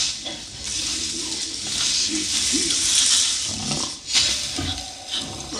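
Film soundtrack: apes grunting and hooting amid a steady rustle of tall grass, with a sudden loud sound about four seconds in.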